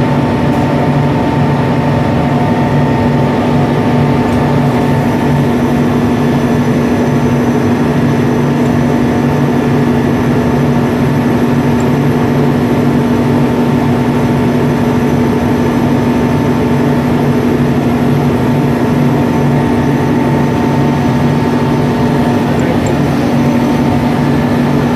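A heavy machine running steadily and loudly, a constant drone with a low hum that pulses evenly and higher steady tones above it.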